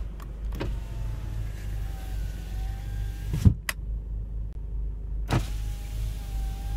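Cabin sound of a 2006 Kia Sportage moving slowly: a steady low engine and road rumble with a faint wavering whine. Several knocks cut through it, the loudest a thump about three and a half seconds in.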